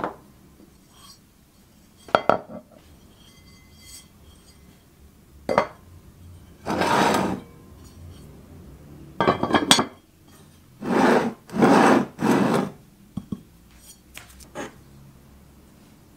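Cast iron lid knocking and scraping against the rim of a cast iron pan. A few sharp knocks, then a run of rasping scrapes, each about half a second to a second long, then a couple more knocks.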